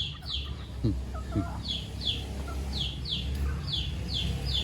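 Baby chicks peeping: a steady run of short, high, downward-sliding peeps, often in pairs. A couple of lower sliding calls come about a second in.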